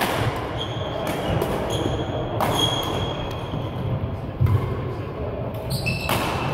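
Badminton rally in a large sports hall: a series of sharp racket hits on the shuttlecock, about half a dozen in the few seconds, some followed by a brief high ring. Thuds of players' footfalls on the court and the hall's echo sit underneath.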